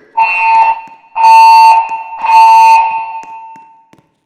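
Fire alarm evacuation tone from a Pyrotronics MXL system: three half-second pulses of a steady high tone about a second apart, the temporal-three evacuation pattern, the third echoing away after it stops.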